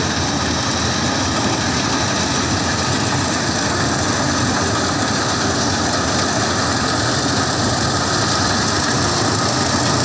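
Balkar combine harvester running steadily while it cuts rice. Its engine and machinery make a dense, even drone threaded with several steady whining tones.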